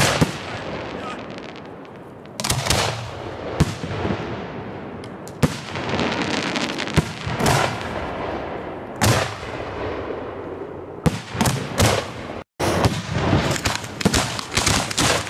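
Professional display fireworks going off in quick succession: sharp launch thumps and aerial shell bursts with crackle trailing after them. The sound cuts out briefly about twelve seconds in, then a dense run of rapid shots follows.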